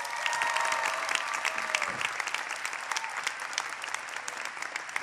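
Large crowd applauding: dense, continuous clapping from many hands.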